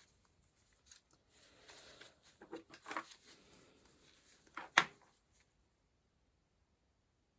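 Small handling noises at a desk: light taps and rustles, then a sharp click a little before the five-second mark, after which the sound drops out completely.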